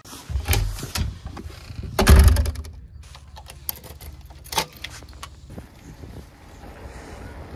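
A front door being opened and shut, with a loud thud about two seconds in. Then a key turns in a bicycle frame lock, which clicks open, and the bicycle rolls over brick paving with wind on the microphone.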